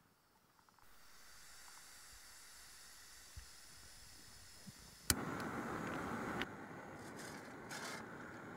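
Small isobutane/propane canister stove: gas hissing from the opened valve, then a single sharp piezo-igniter click about five seconds in and the burner lighting and burning with a louder, fuller hiss that eases off slightly a second or so later.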